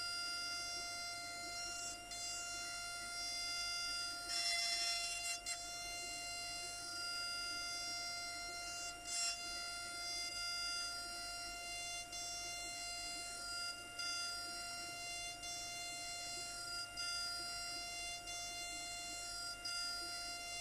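SycoTec KaVo high-speed milling spindle running with a steady high whine as its end mill cuts an aluminum block. A brief louder, noisier stretch of cutting about four seconds in, and a short one near nine seconds.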